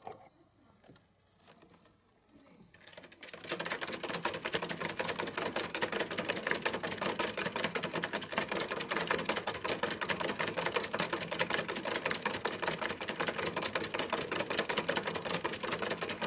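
Exercise wheel spinning fast under a running Richardson's ground squirrel: a rapid, even clatter of clicks. It starts about three seconds in, after a few faint taps.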